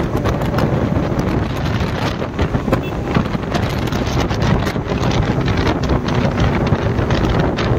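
Motorcycle being ridden at speed: heavy wind buffeting on the microphone over the steady running of the engine.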